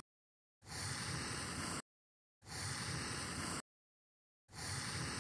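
Three bursts of steady hiss, each a little over a second long, each starting abruptly and cutting off into dead silence.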